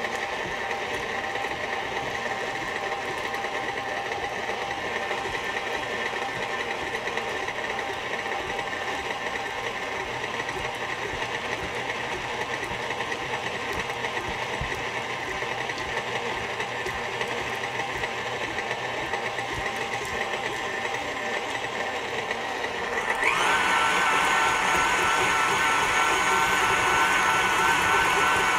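KitchenAid Classic stand mixer running steadily, its flat beater creaming softened butter with agave syrup in a stainless steel bowl. About 23 seconds in it is switched to a higher speed and runs louder and higher-pitched.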